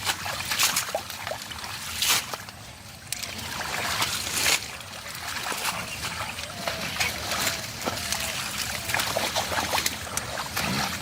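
Shallow muddy water splashing and sloshing in irregular bursts, as hands and bodies move through it while fishing by hand, with a few faint voices.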